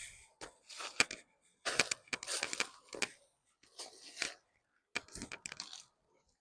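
Hands working through dry potting soil and sweet potato roots in a fabric grow bag: irregular rustling, scraping and crunching strokes with short pauses and a few sharp clicks.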